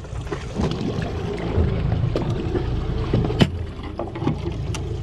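Irregular sharp knocks of a knife chopping baitfish on a plastic cutting board, the loudest about three and a half seconds in, over a steady low rumble of wind and water around the boat.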